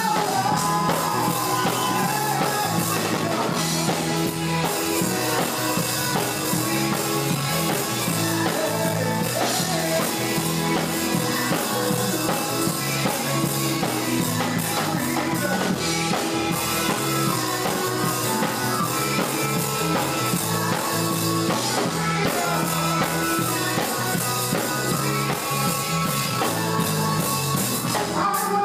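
Drum kit played along with an up-tempo worship song from a full band, drums and cymbals over a moving bass line.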